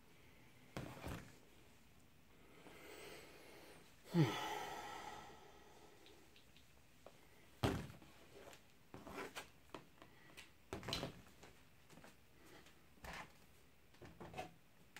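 Scattered knocks and taps of a smartphone and headphone cable being handled and set down on a table, with a short falling sigh about four seconds in.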